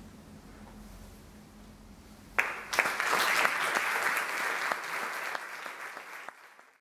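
Quiet room tone after the last note has died away, then an audience starts applauding about two and a half seconds in; the clapping fades out near the end.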